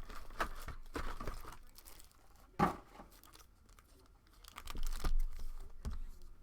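Basketball card pack wrappers being torn open and crinkled by hand, in irregular short crackles, with one louder crackle about two and a half seconds in.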